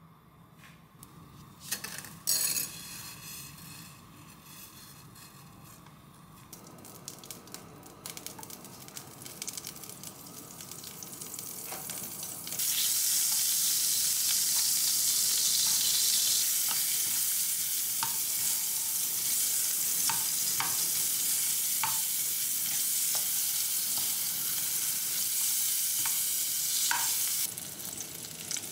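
Butter sizzling in a hot frying pan as a spatula stirs it. A few knocks come near the start, then a quieter hiss slowly builds; about halfway through the sizzle jumps up suddenly and runs steady and loud, with scattered small ticks.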